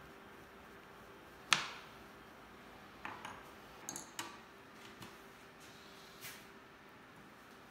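Wood pieces and hand tools being handled on a wooden workbench: one sharp knock about a second and a half in, then a scatter of lighter clicks and taps. A faint steady hum sits under it.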